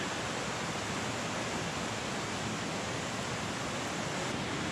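A creek's water rushing steadily, an even hiss with no breaks.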